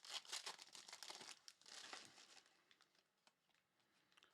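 Crinkling and tearing of a trading card pack's wrapper being ripped open and handled, for about two and a half seconds, then stopping.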